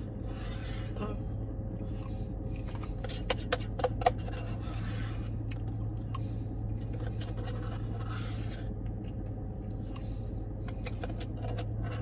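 Plastic spoon scraping and tapping inside a paper Blizzard cup while digging out the last of the ice cream, with a few sharp clicks about three to four seconds in. A steady low hum runs underneath inside the car.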